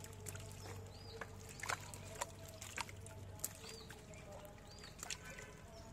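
Small fish being picked from a cast net in shallow water: irregular wet taps, flicks and little splashes as they flap and are dropped into a plastic basket. A faint high chirp recurs now and then.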